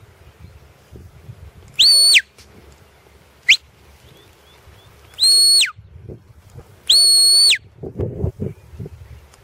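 Shepherd's whistle commands to a border collie working sheep: four high, steady whistle blasts, each sliding up at the start and dropping away at the end, the second only a short upward flick and the last the longest. A few low rumbles follow near the end.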